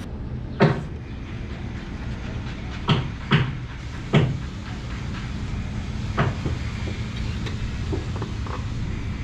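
Irregular knocks and thumps, about five loud ones in the first six seconds and a few fainter ones after, over a steady low hum.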